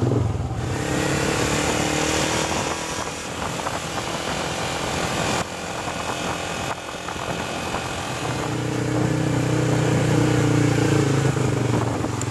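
Yamaha sport motorcycle's engine running under way, its pitch rising as it accelerates about a second in and again later, then easing off, over road and wind noise.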